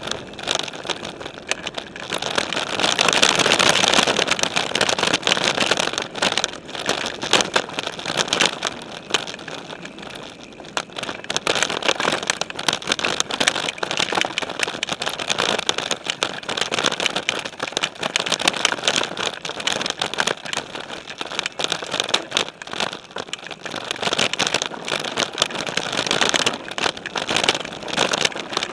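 Specialized Stumpjumper mountain bike rolling over a dirt singletrack, heard through a camera mounted on its frame: knobby tyres crunching on the dirt amid constant rattling and clatter of the bike, with a rougher, louder stretch about three seconds in and again near the end.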